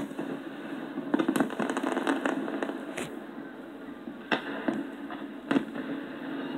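Aerial fireworks exploding at a distance: a bang at the start, a quick run of crackling pops about a second in, then single booms spaced a second or so apart.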